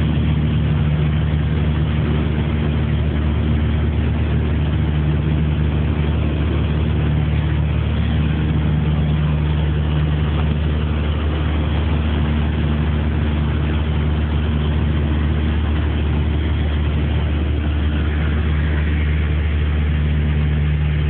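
Piper Aztec's twin piston engines and propellers droning in cruise, heard from inside the cabin: a steady, deep, unchanging hum.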